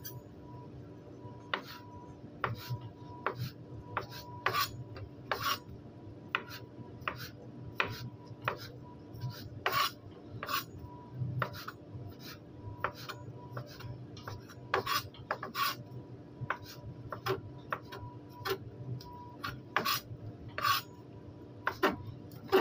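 Chef's knife chopping on a plastic cutting board: irregular knocks about once or twice a second, some sharper than others, over a steady background hum.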